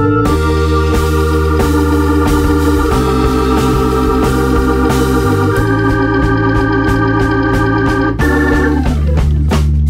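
Background music: held organ-like keyboard chords that change every few seconds, over a light steady beat.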